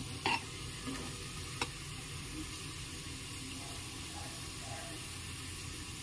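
Hot oil sizzling steadily in a pressure cooker as browned onion slices are lifted out with a ladle. The ladle knocks against the pot a few times in the first two seconds.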